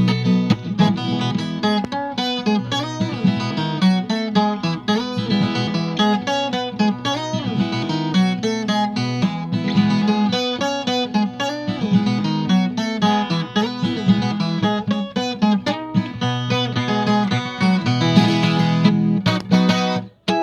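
Viola caipira, the Brazilian ten-string guitar, playing a closing instrumental passage of quick picked notes over sustained low notes. It stops abruptly near the end.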